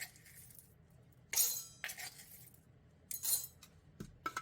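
Dishes and tableware clinking and clattering in several short, separate bursts, as when dishes are being set down and moved about.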